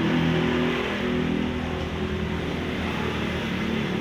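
A motor vehicle's engine running, loudest in the first second and easing off a little after.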